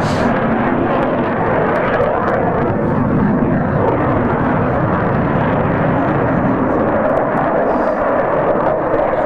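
Eurofighter Typhoon fighter jet flying a display pass, its two EJ200 turbofans making a loud, steady jet roar that holds evenly throughout.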